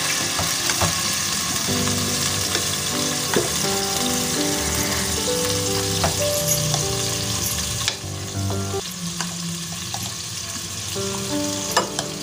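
Marinated chicken tikka pieces frying in a little hot oil in an aluminium pot: a steady sizzle that softens about eight seconds in, with a few light clicks. Background music plays underneath.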